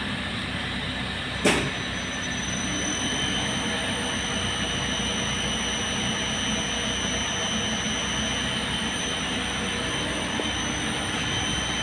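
Elevator machinery running with a steady mechanical hum and a high whine, a sharp click about a second and a half in, and a second, lower whine joining shortly after.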